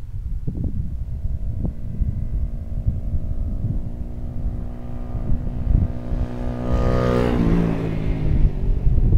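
Honda ST70 Dax with its single-cylinder four-stroke engine bored out past 100 cc, approaching under power and growing louder; its engine note drops in pitch about three-quarters of the way through.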